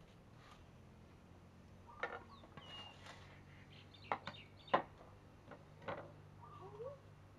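Chickens clucking faintly, with wavering calls near the end, and a few sharp clicks and knocks as meat, plates and utensils are handled around a steel bowl.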